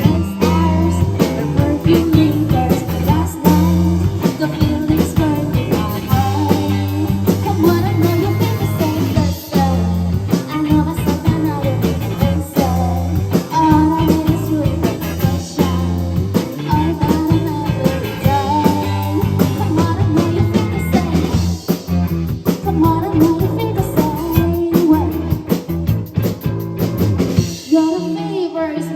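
Rock band playing a song: a lead vocal over electric guitar, bass and drum kit. Near the end the bass and drums drop out briefly.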